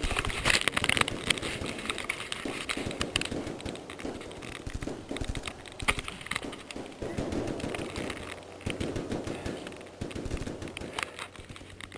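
Airsoft guns firing: a rapid, dense run of sharp plastic clacks in the first second and a half, then scattered single shots and short bursts.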